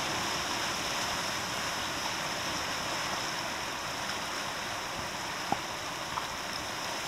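Steady rushing of ocean water washing over and through lava rocks and tide pools, with two faint ticks near the end.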